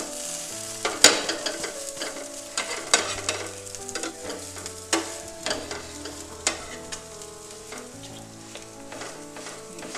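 Bread-and-egg omelette frying in ghee on a tawa griddle, sizzling steadily just after being flipped. A spatula clicks and scrapes against the pan a few times.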